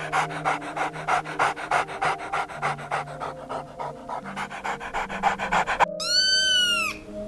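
A dog panting fast and evenly, about six breaths a second, which stops abruptly near the end and is followed by a single drawn-out cat meow. Background music runs underneath.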